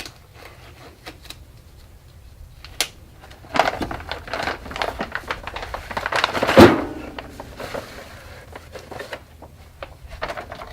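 Handling noise as the liner material and packer are worked by hand: scattered clicks and rustling, busier in the middle, with one loud knock about six and a half seconds in.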